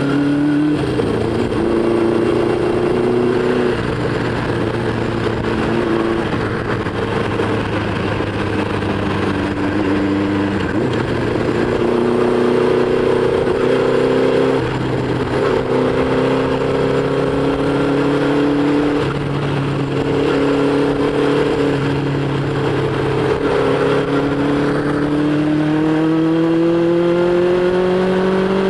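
Honda CB500 Four's air-cooled inline-four engine under way on the road, its note rising, dropping back several times, and climbing steadily near the end, over a steady rush of wind noise on the microphone.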